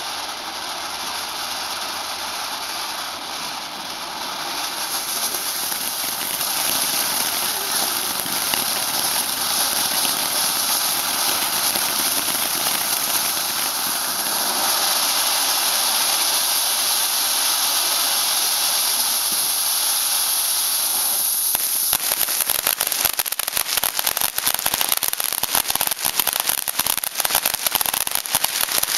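Ground fountain firework spraying sparks with a steady rushing hiss that grows louder over the first several seconds. About three-quarters of the way through, the hiss gives way to dense, rapid crackling.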